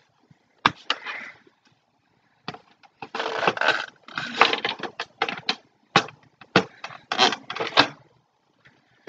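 Plastic parts of a toy crossbow being handled and pushed together: a run of sharp clicks and knocks with scraping, rattling handling noise between them.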